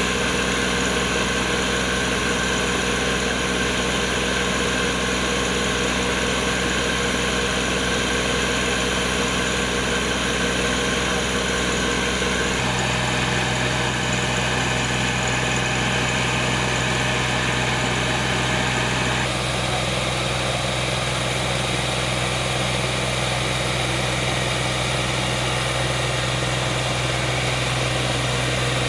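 Farm tractor's diesel engine running steadily, turning a tubewell pump through a shaft coupled to its rear wheel. The engine note shifts slightly about 13 seconds in and again about 19 seconds in.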